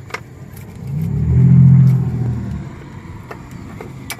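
A passing car: its engine rumble swells, peaks and fades over about two seconds. A few light clicks are heard as well.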